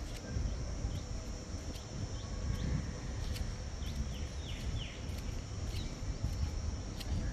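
Birds chirping in short, falling calls, with a clutch of them about four to five seconds in, over a steady high-pitched hum, low rumble and scattered sharp ticks.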